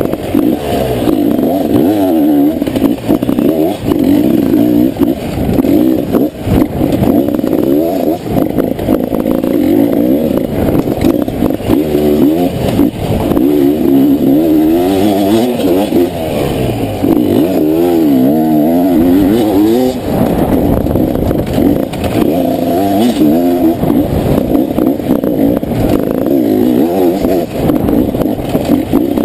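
Beta 300 two-stroke enduro motorcycle engine revving up and down over and over as it is ridden hard over rough dirt, heard close up from on the bike. Frequent knocks and clatter from the bike over the bumps.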